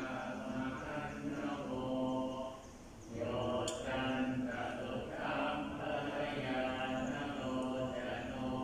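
Buddhist monks' morning chanting: many male voices chanting together on a steady low drone. The chanting breaks off for a breath about two and a half seconds in, then resumes.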